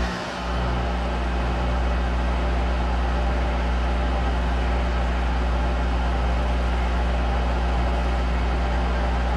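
Monarch 10EE toolroom lathe running steadily with its spindle turning, a constant low hum with a machine whine above it.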